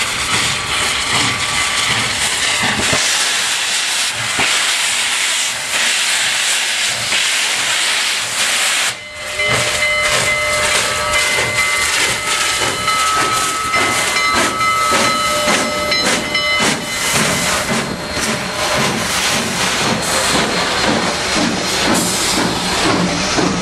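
Union Pacific 844, a 4-8-4 steam locomotive, pulling out with its train and passing close by: a constant hiss of steam over the exhaust beats. Faint steady high tones come and go in the middle stretch.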